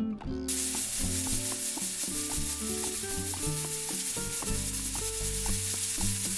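Pressure cooker's weighted steam valve hissing steadily as steam escapes, a sign the cooker is up to pressure. The hiss starts about half a second in, with background music underneath.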